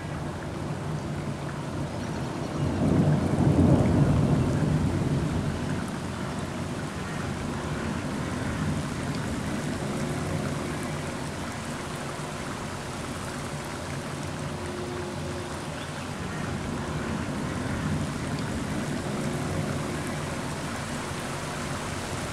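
Thunder from an approaching summer thunderstorm, one loud low rumble swelling about three seconds in and dying away over a few seconds, over steady rain.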